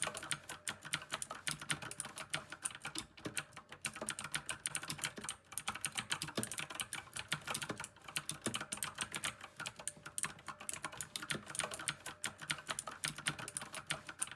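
Fast typing on a VicTsing mechanical gaming keyboard: a dense, continuous stream of key clicks, with a couple of brief lulls midway.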